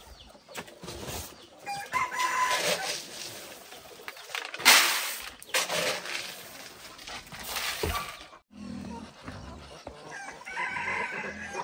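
Chickens clucking and a rooster crowing. A plastic scoop digs into a sack of grain and pours it into a woven basket, a loud rustling rush about five seconds in and again a little later.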